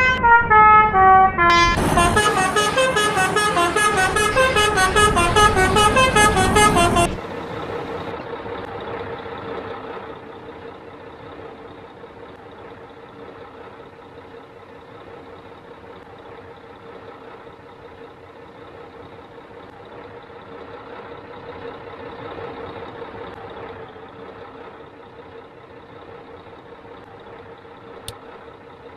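Indonesian telolet basuri bus horn playing a fast tune of many short, stepping notes, then cutting off about seven seconds in. A much quieter steady hum with one faint held tone carries on afterwards.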